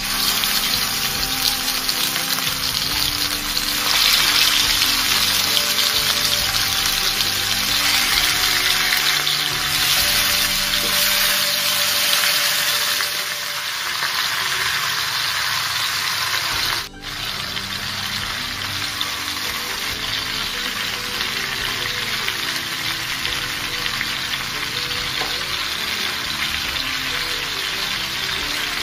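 Marinated chicken pieces sizzling in hot oil in a pan, a steady frying hiss that grows louder about four seconds in, once more pieces are in the oil, and briefly drops out a little past the middle. Background music plays underneath.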